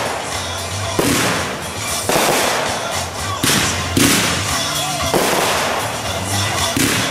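Consumer aerial fireworks going off in quick succession: a sharp bang roughly once a second as each shot bursts overhead.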